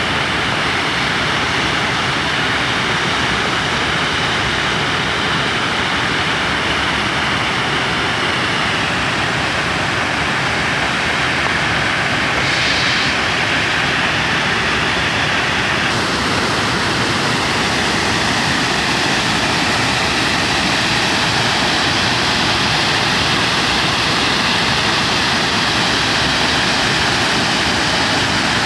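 Waterfall: a steady, loud rush of falling water. It turns a little brighter and hissier just past halfway.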